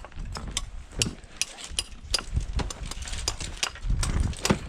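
Irregular sharp metallic clicks and clinks of ice-climbing hardware being handled, about two or three a second, over a low rumble.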